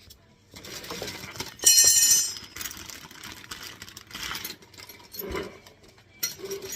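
Loose metal parts and tools clinking and rattling as they are handled, with an irregular run of knocks and a loud metallic rattle about two seconds in.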